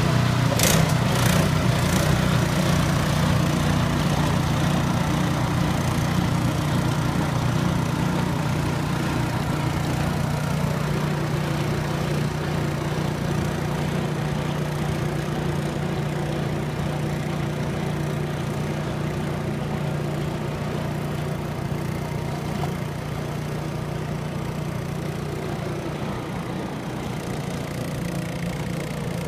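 Engine running steadily at a constant speed, slowly growing quieter, with a few sharp clicks in the first two seconds.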